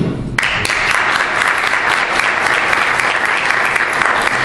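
Audience applauding, starting suddenly about half a second in and going on steadily.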